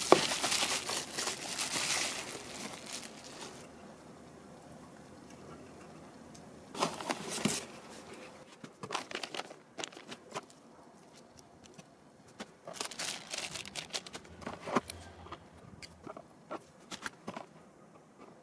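Plastic bubble wrap crinkling as it is handled and pulled off a small electronic unit, dense for the first few seconds. Then scattered rustles and light clicks of cables and plastic connectors being handled.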